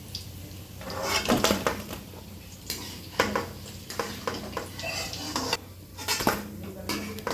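Metal utensil clinking and scraping against the frying pan as fried onion pakoras are lifted out of the oil, with a few louder knocks about a second in, around three seconds in and near the end.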